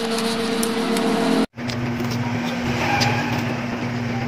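Steady machine hum over a low rumble, with a few faint clicks; the sound drops out completely for a moment about a second and a half in.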